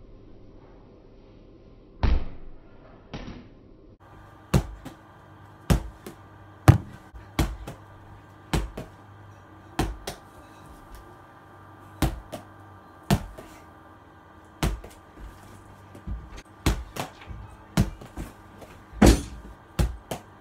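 A small ball thrown hard against a wall and caught, over and over: sharp knocks, one or two a second, after two slower ones at the start.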